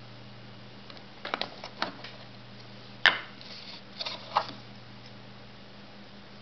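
Zippo 362 Black Crackle windproof lighter's hinged metal lid clicking. A quick run of small clicks comes about a second in, then one sharp, loud metallic click with a brief ring about three seconds in, and a few more clicks a second later.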